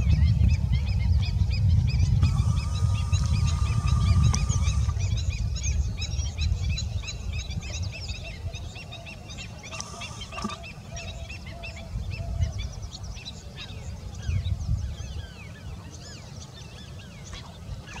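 Swallows twittering: many short high chirps throughout, over a low rumble that is heavy for the first few seconds and then dies down. A steady held tone sounds for a couple of seconds about two seconds in, and briefly again near ten seconds.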